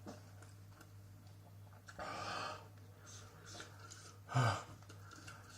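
A man breathing hard from the heat of a very hot chilli burger: a long, noisy breath about two seconds in, then a short, sharp gasp near the end, over a steady low hum.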